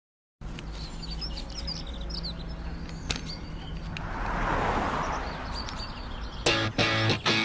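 Street ambience with birds chirping over a steady low hum, and a car passing about four to five seconds in. Near the end, electric guitar chords come in as a song begins.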